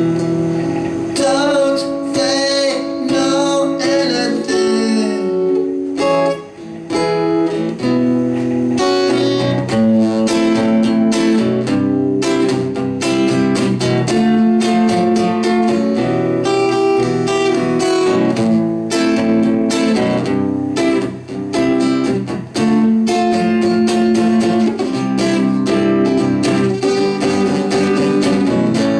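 Live acoustic guitar song, the guitar strummed and plucked throughout, with a wavering sung or whistled line over the first few seconds.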